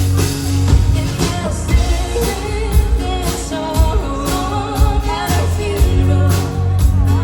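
A band playing a song live, with a lead vocal over steady drum beats about twice a second and a held bass.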